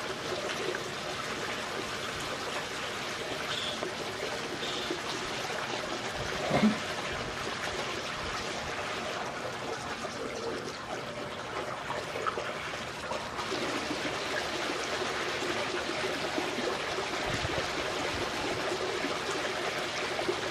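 Steady trickle of running pool water, with one short louder knock about six and a half seconds in.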